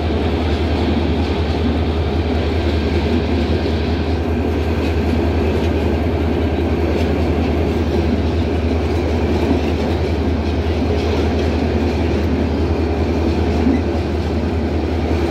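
Passenger coaches of a Bangladesh Railway intercity express train rolling past close by: a steady, continuous rumble of wheels on the track, with one brief louder clank near the end.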